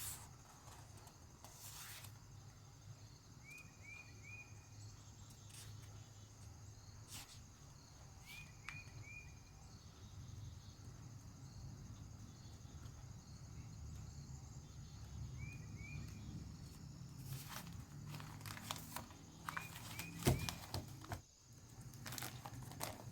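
Quiet room tone with a steady low hum, broken by a few rustles and taps of packaging and paper being handled, thickest near the end. Small chirps in twos and threes come at a few points.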